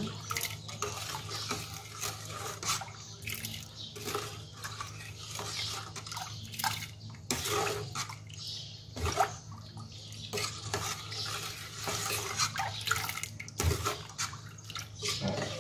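Metal spoon stirring mung beans in coconut milk in a stainless steel pot: the liquid sloshes, with irregular scrapes and clinks of the spoon against the pot.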